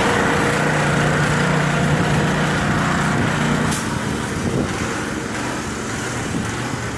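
Air compressor running steadily with a low, even hum; about four seconds in there is a click and the running settles to a quieter level.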